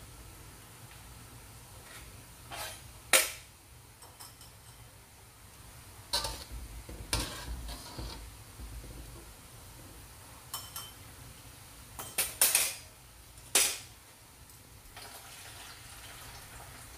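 Wire-mesh skimmer clinking and scraping against a metal wok as blanched eggplant pieces are scooped out of boiling water: several sharp metal clinks a few seconds apart, the loudest about three seconds in.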